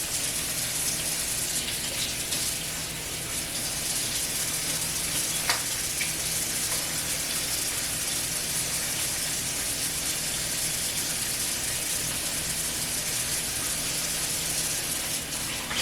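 Kitchen tap running steadily into the sink while tilapia fillets are rinsed under it, with one short knock about five and a half seconds in.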